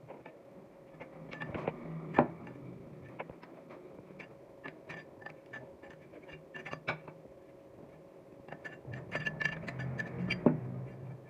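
Small metal parts and tools clinking and clicking on a hard surface in irregular, sharp knocks, some with a short metallic ring. The loudest knocks come about two seconds in and near the end, with a busy run of clicks shortly before.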